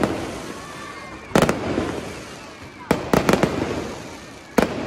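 Aerial fireworks shells bursting in three volleys of rapid bangs about a second and a half apart, each volley fading out in a rumble before the next.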